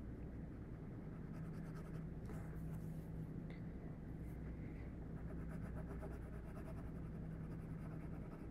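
Graphite pencil shading on a paper worksheet: runs of soft, scratchy back-and-forth strokes, pausing briefly about halfway, over a steady low hum.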